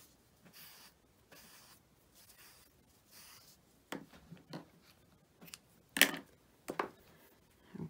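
Faint rustling of baker's twine being pulled off its spool, then a few short clicks and knocks from about four seconds in, the loudest about six seconds in, as scissors cut the twine and the spool and scissors are set down on the craft mat.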